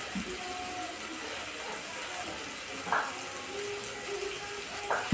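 Biryani masala of onions, tomatoes and spices frying in oil in a pan: a steady sizzle, with two light knocks about three and five seconds in, under faint background music.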